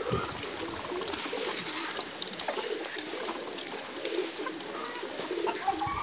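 A flock of Muscovy ducks and chickens feeding, giving soft, low calls over and over, with light clicks scattered through.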